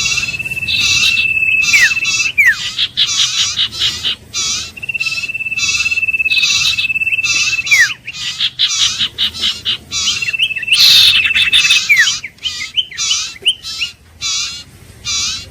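Common iora singing: a long, level, high whistled trill held for about two seconds that ends in a quick downward slur, given three times. Behind it, other short calls repeat steadily at about two a second.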